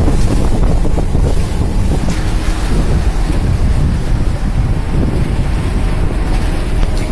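Strong wind buffeting the microphone over the steady wash of heavy seas against a cargo ship, a loud, continuous noise strongest in the lows.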